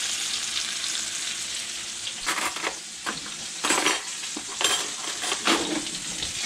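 Brook trout frying in butter in a cast-iron skillet, a steady sizzle throughout. From about two seconds in come several short, sharp clinks and clatters.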